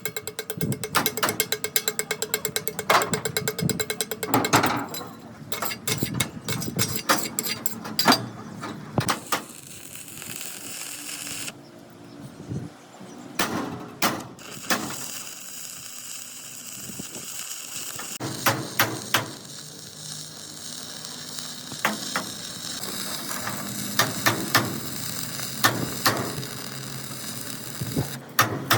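Metalworking in a repair shop: a fast run of sharp clicks or taps for about the first eight seconds, then scattered knocks and clatter of tools on metal.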